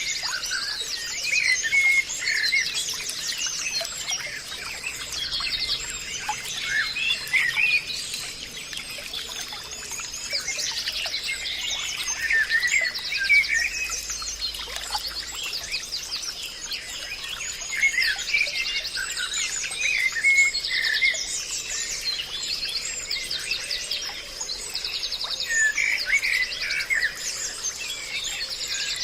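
Forest bird chorus: several birds singing at once, with rapid trills and short chirps overlapping, over a faint steady high tone.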